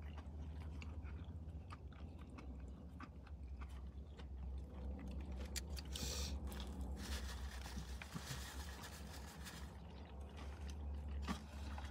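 A person chewing and biting food close to the microphone, with small wet clicks and crunches; a chicken nugget is bitten into about six seconds in. A steady low hum runs underneath.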